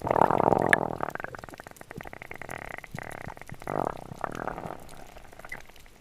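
Water bubbling and gurgling. It starts suddenly, is loudest in the first second, then fades and swells once more near the fourth second.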